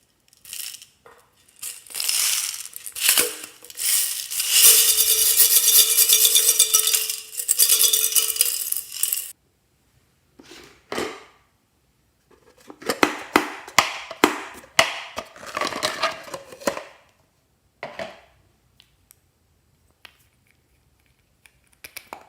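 Slime being mixed in a container: wet clicking and crackling with clinks of a utensil against the container. It comes in a long stretch, stops, and starts again.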